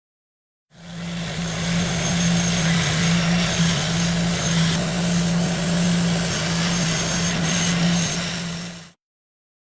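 A power tool with a small electric motor running steadily for about eight seconds: an even motor hum under a broad hiss, starting and stopping abruptly.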